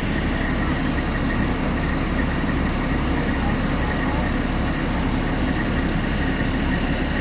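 Fire truck's diesel engine running steadily at the fireground, a constant low hum with a thin steady high whine over it.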